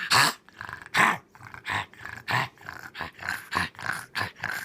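A pug coughing in a rapid run of short bursts, about three a second, the loudest two in the first second or so.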